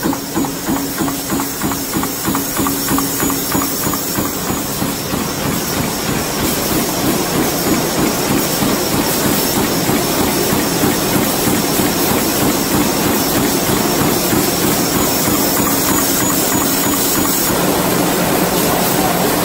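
Power presses stamping plug-terminal hollow pins: regular strokes at about three a second for the first few seconds, then dense, steady noise of several machines running together.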